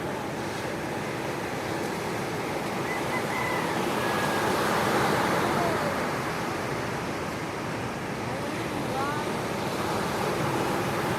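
Sea surf washing onto the shore in a steady rush that swells about five seconds in, with a few faint short chirps over it.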